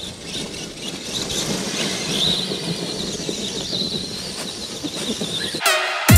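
Redcat Ground Pounder RC monster truck with a 4400kv brushless motor, its motor whine rising and falling as it revs, over the noise of its tires churning through dry leaves and dirt. The sound cuts off shortly before the end.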